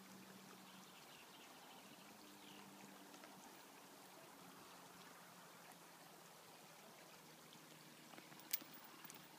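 Near silence: faint outdoor background hiss, with one sharp click near the end.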